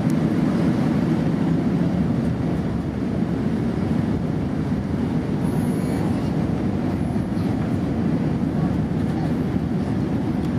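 Steady low roar of a jet airliner's engines, even and unbroken, with no sudden sounds.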